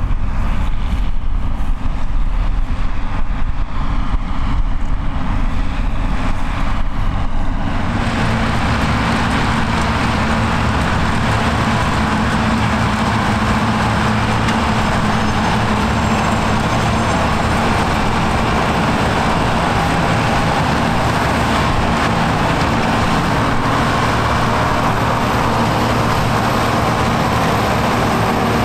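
Forage harvesters at work picking up and chopping grass for silage, their diesel engines running steadily under load: first a tractor-drawn harvester behind a blue Ford tractor, then self-propelled Hesston and John Deere harvesters. About eight seconds in the sound changes from a lower, uneven rumble to a fuller, steadier machine noise, and a thin high whine comes in near the end.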